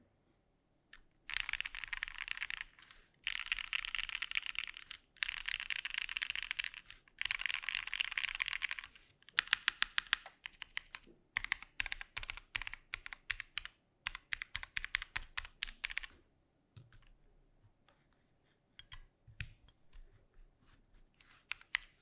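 Tofu60 mechanical keyboard with Cherry MX Black linear switches and GMK keycaps being typed on: four runs of very fast, dense typing, then individual keystrokes in quick succession, fading to sparser, quieter key presses near the end.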